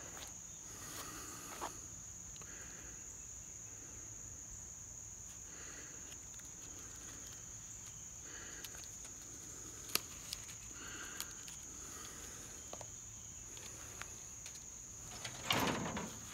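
Steady high-pitched drone of insects, with soft intermittent rustling and crinkling of dry pine needles and a dry leaf being worked into a tinder bundle. A sharp click comes about ten seconds in, and a louder rustle near the end.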